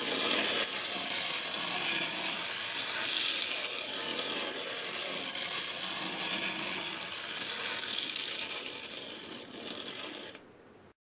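Wind-up Capsule Plarail toy Thomas locomotive running around a loop of plastic track: a steady whirring of its spring-driven gearbox and plastic wheels, which fades a little and stops about ten seconds in.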